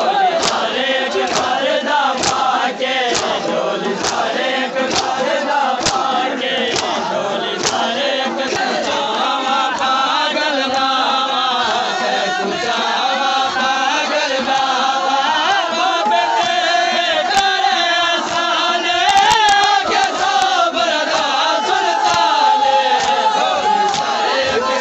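A crowd of male mourners chanting in unison while beating their chests in matam. Sharp hand slaps come about one and a half a second through the first several seconds, then grow sparser under the voices.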